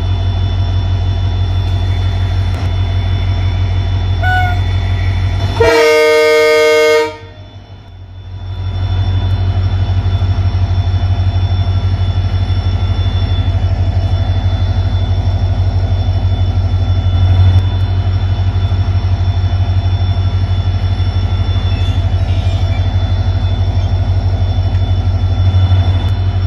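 WAP-4 electric locomotive running with a steady low hum, and one loud locomotive horn blast of about a second and a half about six seconds in.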